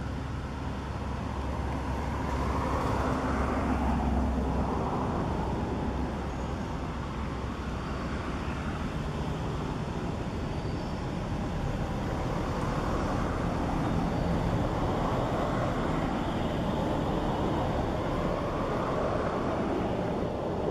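Steady outdoor background noise with no distinct events, swelling about two seconds in and again in the second half.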